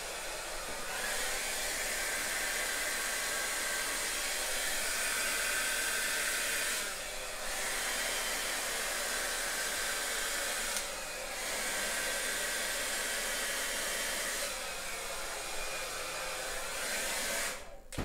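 Handheld hair dryer running steadily, blowing air onto wet acrylic pour paint. Its sound dips briefly twice and cuts off near the end.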